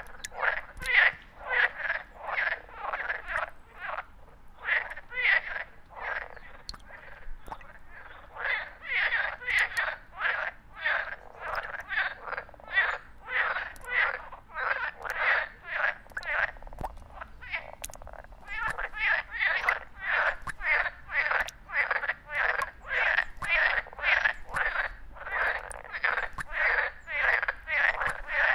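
A frog croaking in a steady, regular series of short calls, about three a second, with brief pauses about four seconds in and again past the middle.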